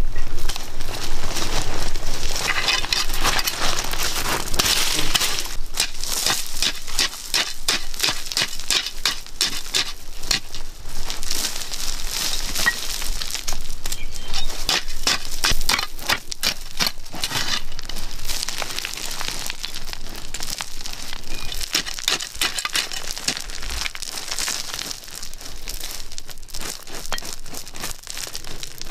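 Loose, gravelly red soil being dug with a hand tool and scraped and scooped by hand: a dense, gritty crunching and crackling of soil and small stones, with no steady rhythm.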